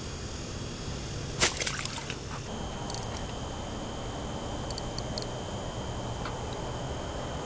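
Handling noise at an ice-fishing hole: one sharp knock about a second and a half in, with a couple of lighter clicks after it. Then a few faint ticks come from a small spinning reel being worked by hand, over a steady outdoor background hiss.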